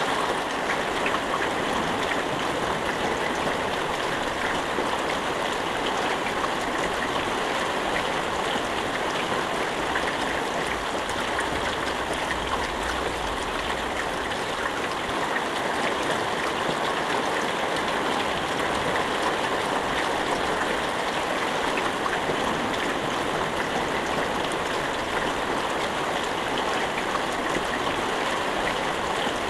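Steady rain falling, an even dense patter with a faint crackle of individual drops and no thunder.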